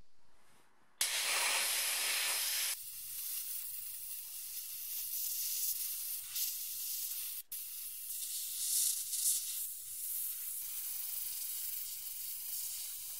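Handheld abrasive blast gun hissing as compressed air drives grit onto the rusted inside seam of a steel car front wing, stripping the rust. The hiss starts about a second in, loud and full for a couple of seconds, then settles into a steady high hiss. It breaks off for an instant midway and swells briefly a little later.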